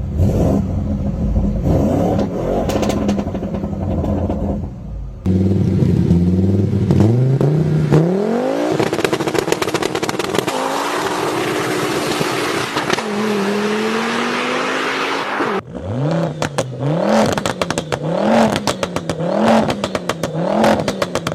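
Audi engines revving hard through the exhaust, with loud pops and crackles as the revs drop, in several cut-together clips. One engine climbs in pitch and holds high. Near the end, the throttle is blipped about once a second, each rev followed by a burst of crackles.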